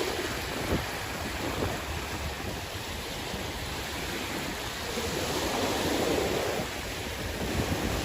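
Sea waves washing in, with a wave swelling louder about five seconds in and subsiding, and wind buffeting the microphone.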